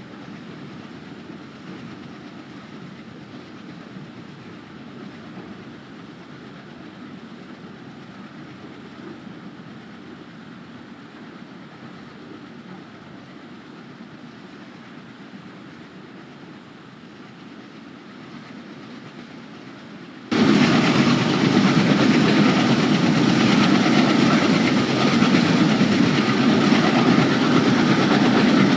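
Alco WDG-3A diesel locomotive's 16-cylinder Alco 251 engine running with a steady low rumble. About 20 seconds in the sound jumps suddenly much louder and fuller, and stays that way.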